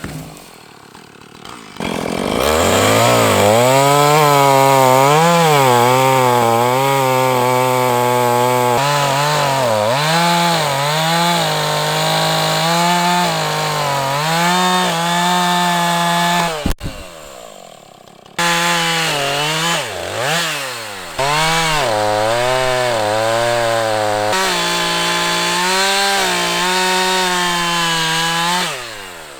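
Gasoline chainsaw running at high revs and cutting into a large log, its pitch dipping and rising as the chain bogs in the wood and frees up. It cuts off abruptly about two-thirds through, starts again a moment later, and dies away near the end.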